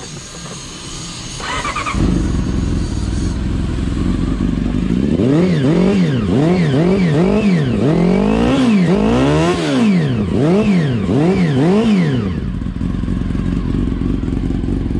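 Honda CBR400 inline-four motorcycle engine starting up about two seconds in and idling. It is then blipped through a string of about ten quick revs, each rising and falling, before settling back to idle. It exhales through an aftermarket slip-on muffler.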